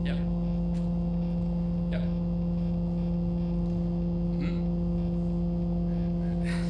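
Steady electrical mains hum from an idle amplified electric guitar and PA rig with nothing being played: a low buzzing tone with several overtones. A few faint small clicks sound over it.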